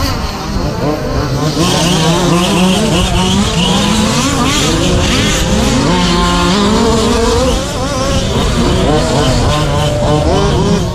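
Several radio-controlled short course trucks racing, their motors whining in overlapping pitches that rise and fall as they accelerate and slow.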